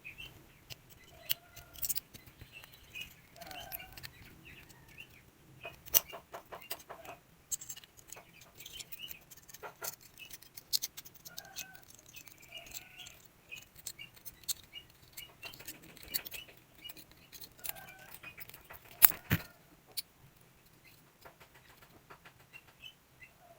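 Scattered small clicks and taps, like hand tools working on a smartphone, with a quick run of about eight clicks a second around six seconds in. Faint bird chirps sound in the background.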